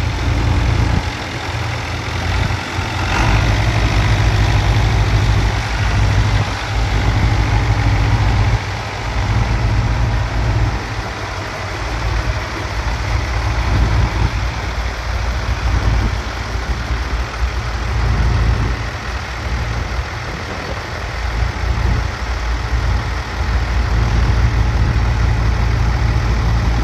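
Long 550 tractor engine running while the tractor is driven, its loudness rising and falling.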